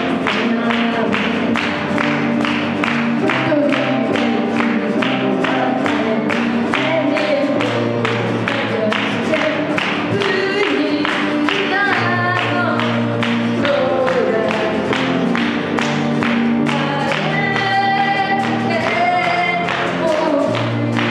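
Acoustic guitar strummed in a steady rhythm with electronic keyboard, and a woman singing the melody.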